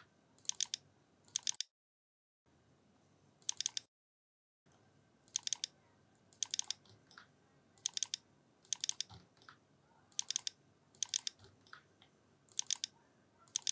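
Computer mouse double-clicked over and over: a quick pair of sharp clicks about every second, each one repeating an offset on another face.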